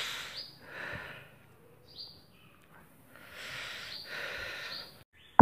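Soft breathing close to a phone microphone, heard as a few puffs of noise, with a few short high chirps in between.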